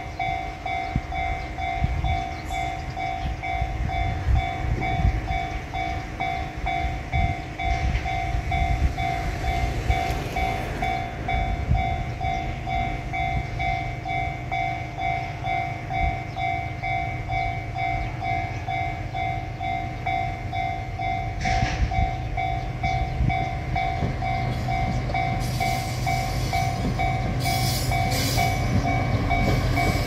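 A Japanese railway level-crossing warning bell rings steadily and without pause. Under it, the diesel engine of a JR Shikoku 2000 series railcar rumbles and grows louder as the railcar approaches, with wheel and rail noise rising near the end.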